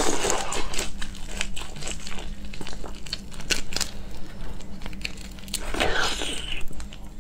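Prawn shells crackling and snapping close to the microphone as whole prawns are peeled by hand and bitten, with many sharp clicks throughout. Wet sucking and slurping at the start and again about six seconds in.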